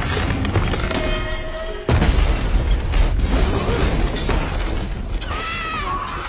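Film action-scene sound effects: explosions and crashing, shattering debris, with a sudden heavy boom about two seconds in, over an orchestral-style music score. A wavering high tone rises and falls near the end.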